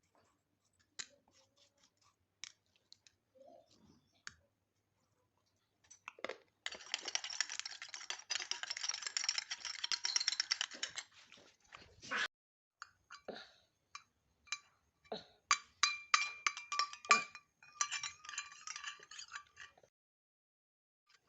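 Kitchen utensils clinking and scraping: several seconds of dense, rapid scraping, then a run of ringing clinks, a spoon striking a cup, in the last third.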